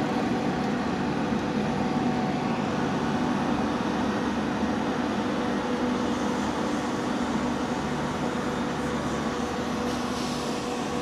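Steady rumble and hum of a train, with a few constant tones running through it.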